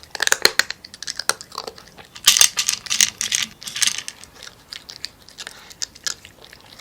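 A cat crunching dry kibble: irregular crisp crunches, thickest from about two to four seconds in, then sparser.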